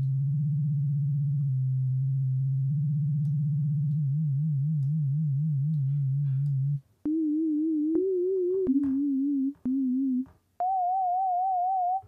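Sine-wave tone from the Vital software synthesizer with an LFO wobbling its pitch by about a semitone: a low steady note that begins wobbling quickly about four seconds in, then five shorter notes played at higher pitches with the same fast wobble, each starting with a small click. It sounds a little like a UFO from very old sci-fi movies.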